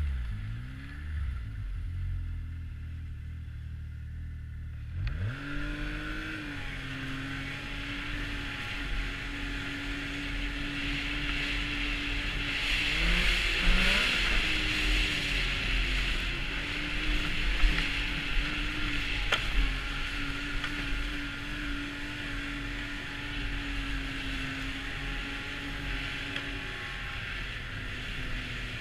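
Arctic Cat snowmobile's four-stroke triple on a trail ride: the engine eases off near the start, pulls back up about five seconds in and then holds a steady cruise, with wind and track noise over it. Near the middle an engine pitch briefly rises and falls, and a couple of sharp knocks come later.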